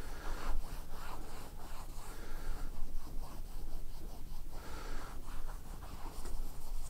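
A dry lint-free cloth rubbing over a welded metal test plate in repeated wiping strokes, removing the excess liquid penetrant.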